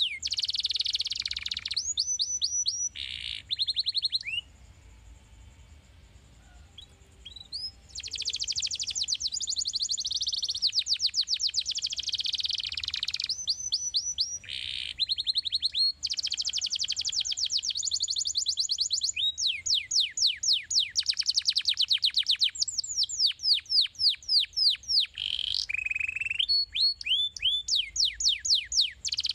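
Domestic canary singing a fast song of rapidly repeated down-slurred notes and rolling trills. It pauses for about three seconds early on, then sings almost without a break.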